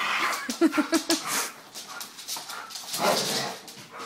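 A Labrador and a collie play-fighting, growling at each other. A quick run of short growls comes about half a second in and a rougher growl around three seconds in, with scuffling clicks in between.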